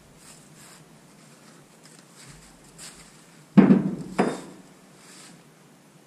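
Two heavy metal clanks about half a second apart, a little past halfway, each with a short ring: a yellow hydraulic bottle jack being put away against metal.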